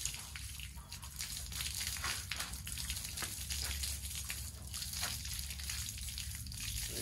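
Water splashing and dripping while a fixed-gear bicycle is washed by hand, with many small irregular splashes and knocks.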